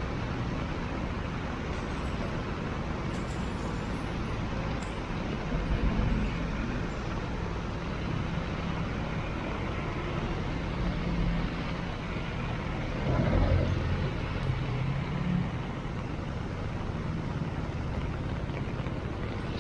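Heavy rain and road traffic: a steady rushing hiss under the rumble of passing cars and larger vehicles, loudest as a heavy vehicle goes by about thirteen seconds in.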